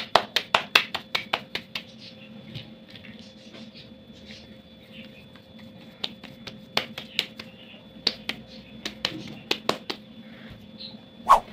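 Hands patting a ball of corn masa flat between the palms to shape a gordita: a quick run of wet slaps, about six a second at first, then slower scattered pats.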